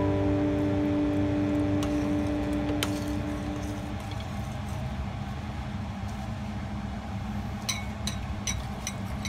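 Background music: a sustained chord fades out over the first four seconds, leaving a low steady hum with a few faint clicks.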